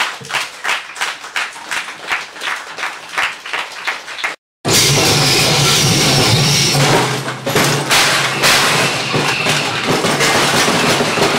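Experimental noise music: sharp clattering hits at about four a second, then a brief cut to silence about four and a half seconds in, followed by a loud, dense wash of noise over a low steady hum.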